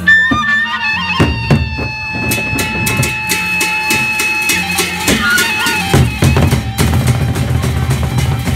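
Gendang beleq ensemble playing: the large barrel drums beat a steady pattern under a wind instrument holding long notes. About six seconds in, the drumming grows denser and fuller.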